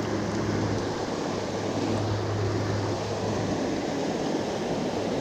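Steady rush of fast, high white water in a river running full after heavy rain, with a low steady hum underneath that fades out a little past the middle.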